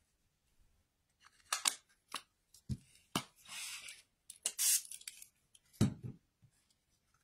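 Small handheld water mister spraying twice in short hissing puffs, amid clicks and dull knocks of a plastic dye ink pad being opened, pressed onto a craft sheet and set down.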